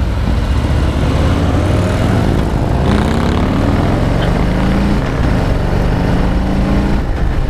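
Harley-Davidson Softail Heritage V-twin engine pulling under acceleration on the road. Its pitch climbs, dips about three seconds in as it shifts up, then climbs again until near the end.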